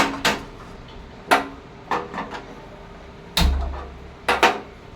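Pot being set on a gas stove and the burner lit: a string of sharp clicks and knocks, with a low thump about three and a half seconds in.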